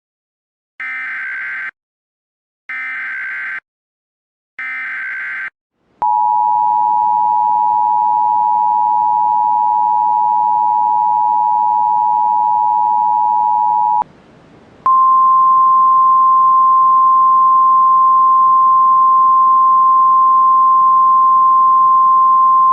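Emergency Alert System tones: three short bursts of warbling SAME header data, then the two-tone EAS attention signal held for about eight seconds. After a brief pause comes a single steady weather-radio alert tone, the signal that heralds a National Weather Service warning.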